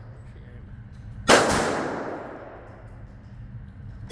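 A single handgun shot about a second in, its echo dying away over about a second; the next shot comes right at the end.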